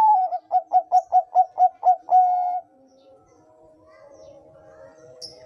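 Bangkok-strain zebra dove (perkutut) cooing: a loud opening note, a quick run of about nine short coos, then one longer held note, the whole phrase lasting about two and a half seconds.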